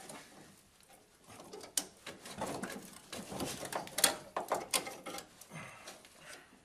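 A large screwdriver scraping and clicking against metal as it pries a handbrake caliper spring out, in irregular scrapes and several sharp metallic clicks.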